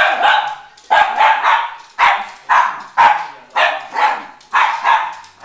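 Miniature schnauzer barking over and over in quick runs of two or three, about three barks a second, in play-aggression at a toy-like object.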